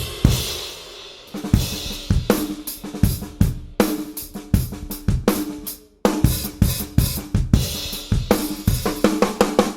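Drum kit recorded through a Yamaha EAD10 drum module, with triggered snare and tom sounds: a cymbal crash opens, then sparse kick and snare hits. There is a short break about six seconds in, then the groove resumes and builds into a busy fill near the end.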